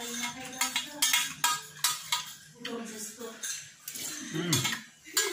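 A metal spoon clinking and scraping against a metal plate while eating, a string of sharp clinks, loudest in the first two seconds.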